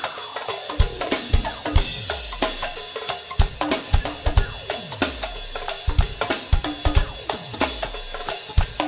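Go-go band drum and percussion groove with a driving drum kit: kick, snare and rimshots, cymbals and hand percussion. Deep drum sounds fall in pitch a few times.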